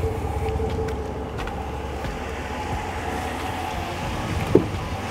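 Ram 1500 Rebel pickup's 5.7-litre V8 idling with a steady low rumble and a faint hum. About four and a half seconds in, the passenger door handle is pulled and its latch gives a single sharp click.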